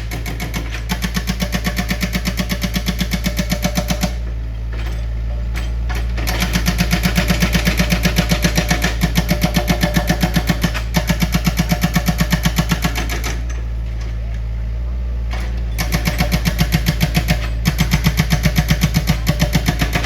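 Heavy machinery running with a rapid, regular knocking of about four beats a second over a steady low drone, the knocking pausing and starting again a few times.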